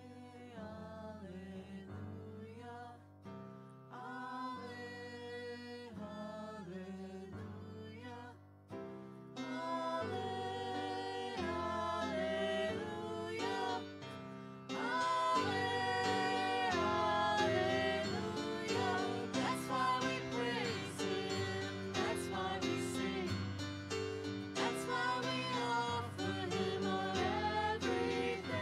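A worship band playing a contemporary worship song, with guitar and singers on a repeated "hallelujah" refrain. The music grows louder in two steps, about ten and fifteen seconds in.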